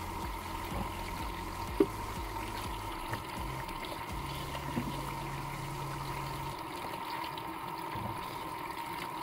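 Tap water running into a metal bowl of green walnuts while a hand stirs and rinses them, with a sharp click about two seconds in and a couple of fainter ones later.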